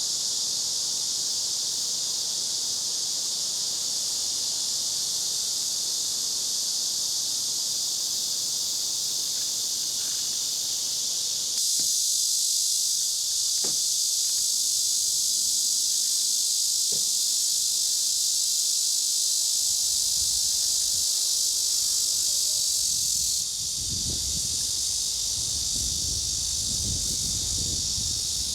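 Dense, steady chorus of insects chirring in summer park vegetation, with the level jumping up about a third of the way in and dropping back near the end. A low rumble comes in over the last few seconds.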